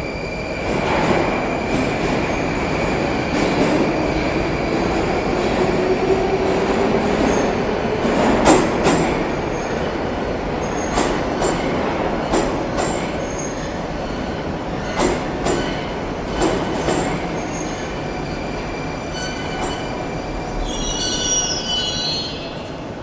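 Oka metro train pulling into the station and braking to a stop, its running rumble loud. A motor whine rises in pitch over the first several seconds, and the wheels clack over rail joints in pairs that come further apart as it slows. A brief high squeal of the brakes sounds near the end as it halts.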